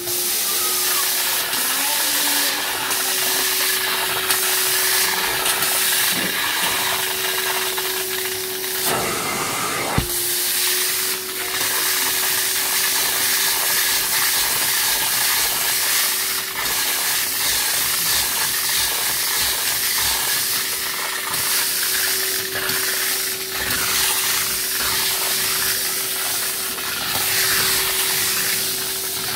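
Alltec Evolution portable hot-water carpet extraction machine running steadily, its vacuum motor giving a constant whine under the hiss of spray and suction as the wand rinses and extracts water from a wool carpet. One sharp click about ten seconds in.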